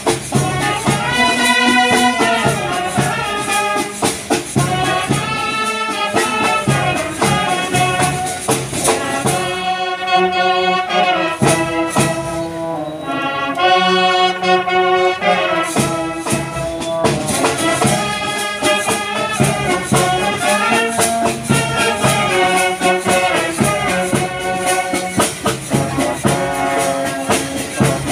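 Brass band of euphoniums and tubas playing a tune in harmony with sustained chords, with percussion keeping time. The percussion thins out for a stretch in the middle, then returns.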